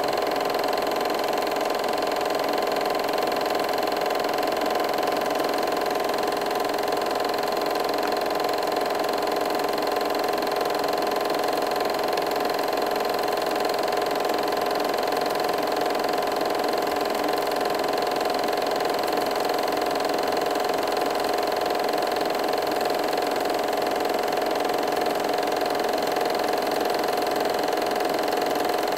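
Movie projector running: a steady mechanical whir with a constant hum.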